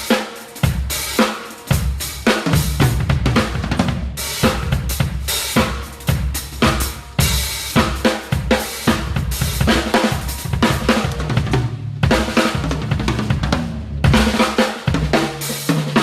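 Drum kit played in dense, fast fills with snare, bass drum, toms and crash cymbals. The snare is a Pearl maple snare, which the drummer finds tuned a little high.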